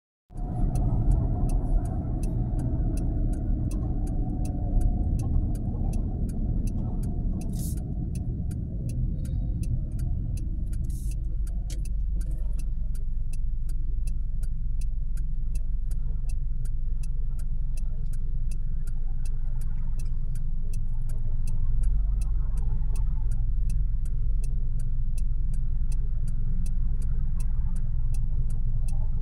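Steady engine and road rumble inside a car's cabin, easing to a lower idle rumble as the car comes to a stop, with a turn-signal indicator ticking steadily and evenly throughout.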